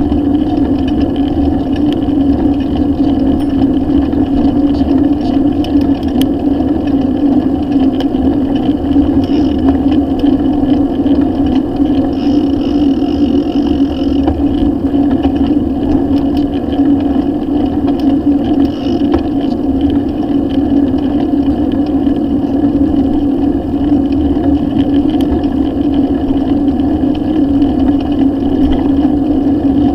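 Steady loud drone and low rumble picked up by a camera mounted on a moving bicycle's handlebar: wind and ride vibration on the microphone, with a constant hum running through it.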